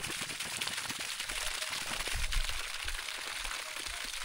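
Water gushing from an open PVC pipe outlet and splashing onto bare soil: a steady rush, with a brief low rumble about two seconds in.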